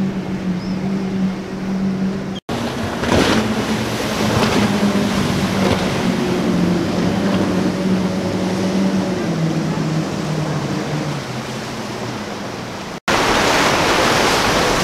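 Multiple outboard motors on center-console boats running at speed, a steady engine drone over the rush of spray and waves, its pitch dropping about ten seconds in. The sound changes abruptly twice; in the last couple of seconds a broad rush of water and wind drowns out the engines.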